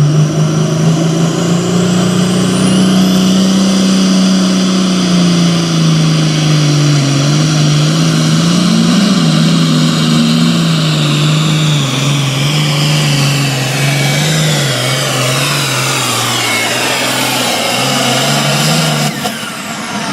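Super farm class diesel pulling tractor running hard at high revs under load during a pull, loud and steady with the engine note wavering. Over the last several seconds the pitch slides down as the engine winds down, and the loudness dips sharply shortly before the end.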